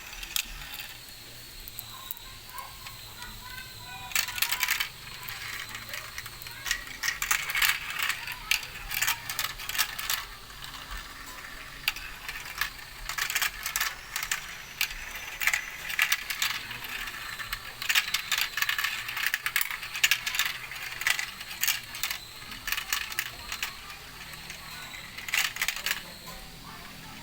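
Marbles rolling and clattering down a marble run track: a dense run of quick clicks and rattles that starts about four seconds in and thins out near the end.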